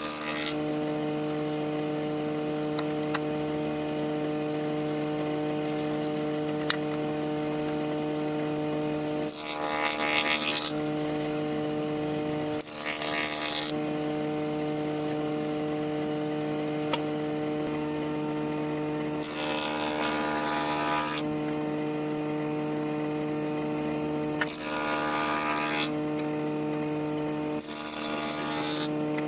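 An electric woodworking machine's motor running with a steady hum, broken five times by short cutting bursts of about a second each into wood.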